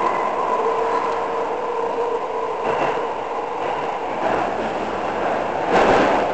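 Toei Shinjuku Line subway train running, heard inside the carriage: a steady rumble of wheels on rail. A motor whine fades out in the first couple of seconds, and a few wheel clacks follow, the loudest a little before the end.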